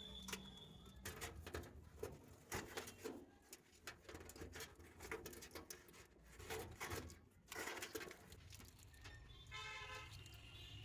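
Irregular light clicks and short scrapes of hands working on parts, with a brief pitched call near the end over a low hum.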